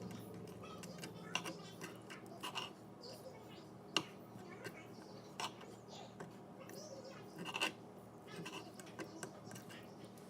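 Knife cutting raw chicken breast on a cutting board: scattered light taps and scrapes, with the sharpest tap about four seconds in.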